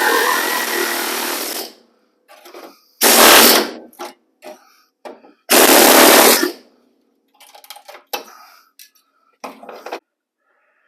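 Power tool cutting into the rusted sheet metal of a pickup's cab corner in three short bursts, the first ending about two seconds in, then the other two a couple of seconds apart, followed by light metal clatter.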